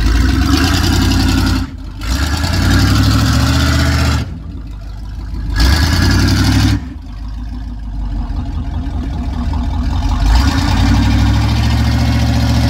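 Chevrolet Avalanche's V8 revving hard off-road. The engine climbs in pitch in several surges and drops off sharply three times between them.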